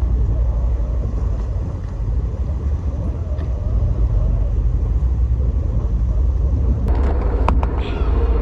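Fishing ferry's engine running with a deep, steady rumble as the boat holds its bow against the rocks. A few sharp knocks come near the end.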